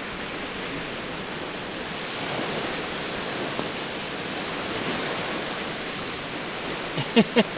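Steady rushing noise of wind, with a few short voice-like sounds near the end.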